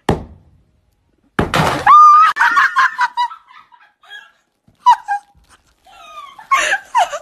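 A sharp knock, then a loud crash about a second and a half in, followed by a long high-pitched shriek and several short yelps.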